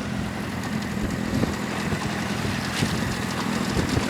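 Small fishing boat's motor running steadily, with wind noise.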